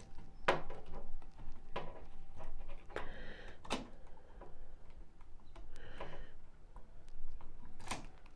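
Scattered small clicks and taps, a handful spread unevenly, from hand tools and wires being worked at a wall light switch.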